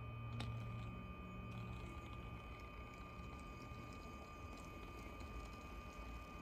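Faint steady whine with a low hum from two model locomotive chassis with coreless motors creeping along at a low DCC speed step, with one light click about half a second in. One chassis, on the older Lenz decoder, runs a bit jerkier and noisier; the other, on the ESU LokPilot V5, runs very smoothly.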